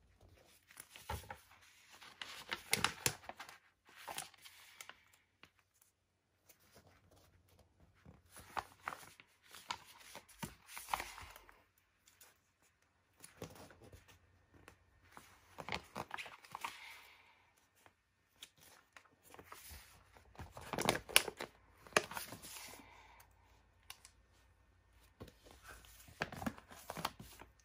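Paper stickers being peeled off their backing sheet one at a time and stuck onto a magazine page, with the sheet rustling: repeated short spells of ripping and rustling a few seconds apart, with quiet gaps between.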